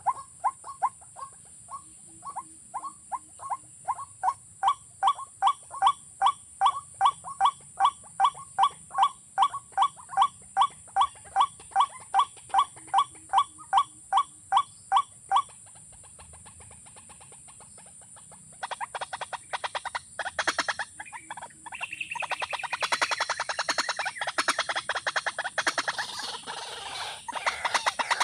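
A bird calls over and over, a short note repeated about three times a second for some fifteen seconds. After a few seconds' pause comes a louder, much faster, dense run of sharp chattering sounds. A steady high-pitched whine runs underneath throughout.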